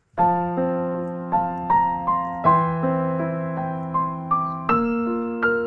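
Background piano music: struck chords and melody notes, each fading after it is played, with a new note every half second or so.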